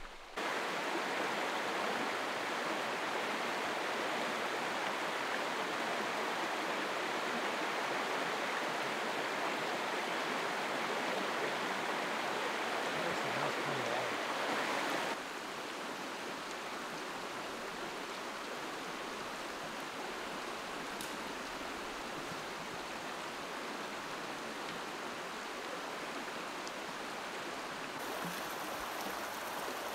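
Small rocky creek running over stones: a steady rush of water, a little quieter from about halfway through.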